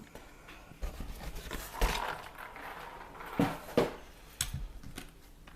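Handling noise of an airsoft gun being picked up and moved about: a scatter of light knocks, clicks and rustles.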